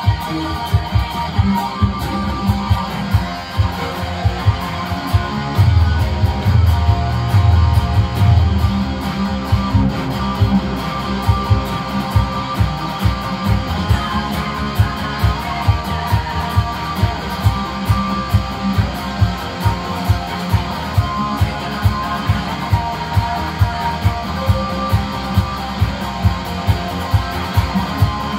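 Electric guitar picked through a Line 6 amplifier, playing along to a disco backing track with a steady beat of about two beats a second.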